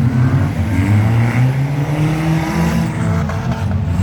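Several demolition derby cars' engines revving at once, their pitch repeatedly rising and falling.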